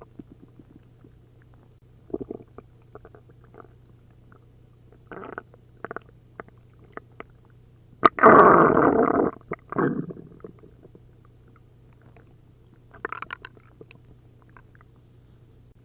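A person's stomach and intestines gurgling with liquid after drinking a liter of milk and a liter of prune juice, a sign of an upset stomach. Short scattered bubbling gurgles come throughout, with one long, loud gurgle about eight seconds in and another burst of gurgles around thirteen seconds.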